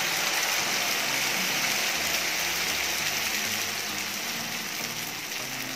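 Hot oil with its mustard-seed, lentil, red-chilli and curry-leaf tempering sizzling as a thin stream of ground rice-and-coconut batter pours into the pan; a steady hiss that slowly dies down as the batter covers the oil.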